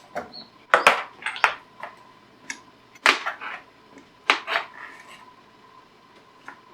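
Kitchen utensils and dishes clinking and knocking: about half a dozen sharp separate clacks in the first five seconds, then only a faint steady hum.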